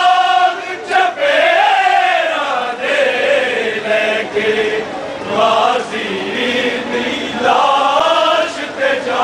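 Group of men chanting a noha, a Shia Muharram mourning lament, in long sung phrases that rise and fall in pitch.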